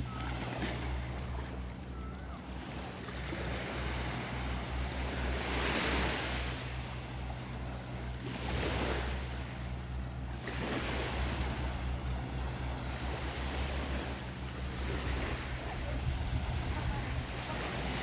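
Small waves washing onto a sandy beach, the rush swelling and fading every few seconds, with wind on the microphone and a steady low hum beneath.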